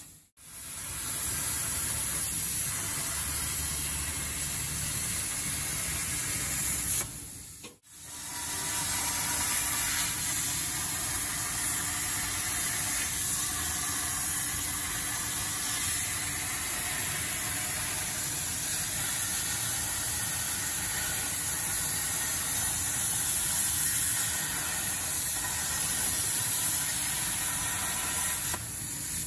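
CNC plasma torch cutting 4 mm Corten steel plate: a steady, even hiss of the arc and its gas jet. The hiss breaks off sharply twice, just after the start and about eight seconds in, each time coming back within a second or so.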